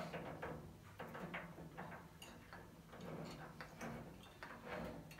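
A caster being screwed by hand into the base of a roller cab tool chest: a run of faint, irregular small metallic clicks and ticks.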